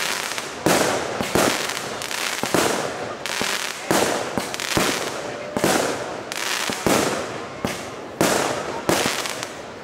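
Fireworks going off in a rapid barrage: a sharp bang a little more than once a second, each one trailing away before the next.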